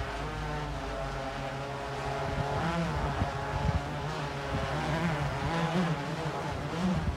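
DJI Inspire quadcopter's propellers whining as it hovers low. The pitch holds steady at first, then wavers up and down from about two and a half seconds in as the motors adjust to keep it in position.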